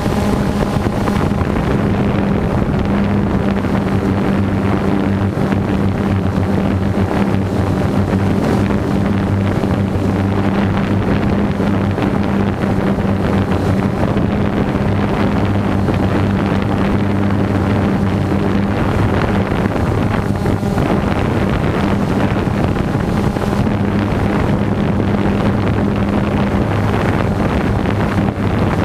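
Multirotor drone's electric motors and propellers running in steady flight as heard by its onboard camera: a loud, even hum under a rush of wind on the microphone.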